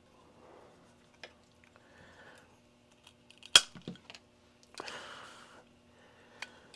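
Small hand tools and a bamboo skewer being handled on a hobby workbench: one sharp snap about three and a half seconds in, a few lighter clicks just after it, then a brief scraping rustle, over faint handling noise.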